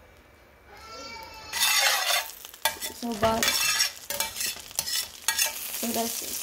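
Butter sizzling and foaming in a hot stainless steel pan as a utensil stirs and scrapes it around. The sizzle starts loud about a second and a half in and comes in uneven surges with each stir.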